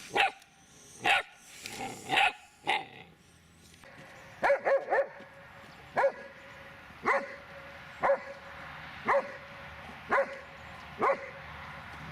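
Dobermann barking repeatedly: a few barks at first, a quick triple, then single barks at an even pace of about one a second.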